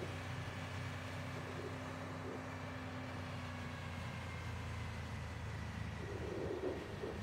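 An engine running steadily: a low hum with a fainter high whine that drifts slowly lower.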